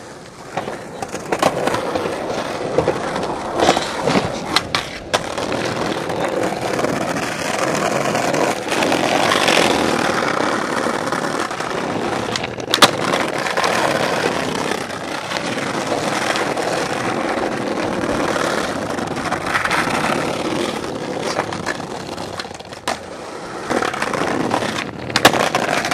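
Skateboard wheels rolling over brick paving, a continuous gritty rumble, broken now and then by sharp clacks of the board hitting the ground, the loudest about halfway through and another near the end.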